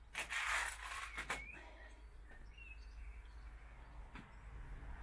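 A short rustle and a couple of sharp clicks of handling, then a few faint, high bird chirps.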